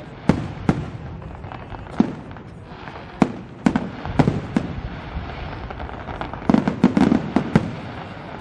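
Aerial firework shells bursting in an irregular string of sharp bangs over a low rumble, with a quick flurry of reports about two-thirds of the way through.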